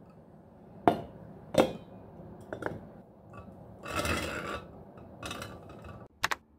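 Drinking glass handled on a counter: two sharp knocks and a few light clinks as it is fitted into a pink tumbler sleeve. About four seconds in comes a scraping rub as a straw is pushed into the drink, followed by a shorter rub and two quick taps near the end.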